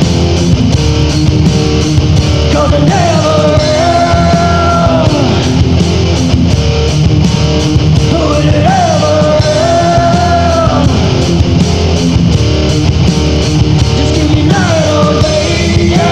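Rock band song with distorted electric guitar, bass and drums playing steadily, and a lead singer's voice coming in for three long held phrases, each bending in pitch.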